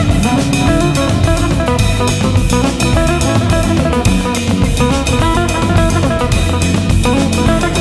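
Background music: an instrumental stretch of a rock-rap track with guitar and a steady drum-kit beat.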